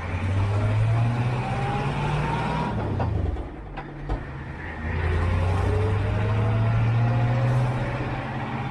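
Kubota U35-4 mini excavator's diesel engine working under load, swelling twice as the hydraulics are worked. A faint rising whine rides over the engine note, and there are a few knocks in the lull between the two swells.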